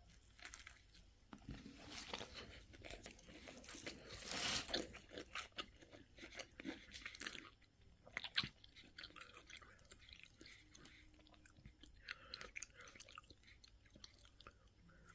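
A person biting into and chewing a breaded spicy chicken sandwich: the crisp breading crunches, loudest about four seconds in, then quieter, sparser chewing.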